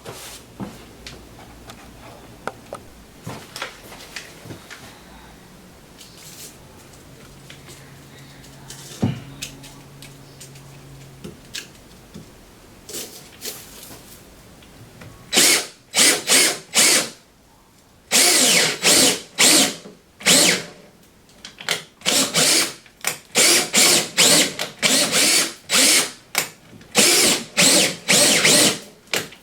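Quiet handling noises, then from about halfway a power drill running in many short bursts.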